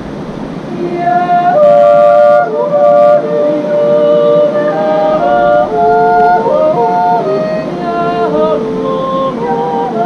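Two women singing a Swiss folk song in two-part harmony with an accordion, in held notes that step from one pitch to the next; the music grows louder about a second in.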